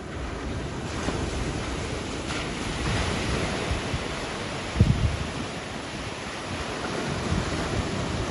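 Sea waves washing and breaking, with wind buffeting the microphone; a stronger gust hits the microphone about five seconds in.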